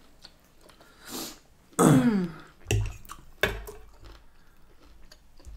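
A person clears their throat about two seconds in, the sound falling in pitch, after a short breath a second earlier. A few sharp knocks of cutlery on a plate follow.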